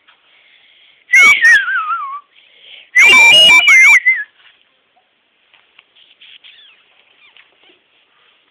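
A cat meowing loudly twice in high-pitched cries. The first, about a second in, falls in pitch; the second, about three seconds in, wavers up and down.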